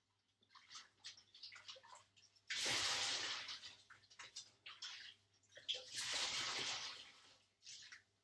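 Wet skeins of wool yarn dunked in and out of rinse water in a stainless steel sink: irregular splashing, then water rushing and pouring in two loud stretches, about two and a half seconds in and again around six seconds.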